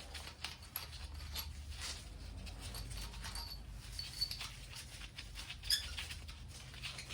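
Faint, scattered light clicks and scrapes of hand-handled tools and engine parts during a diesel engine teardown, over a steady low hum.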